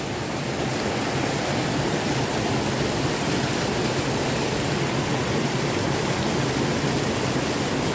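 Small mountain stream rushing over rocks in little cascades, a steady, even rushing of water.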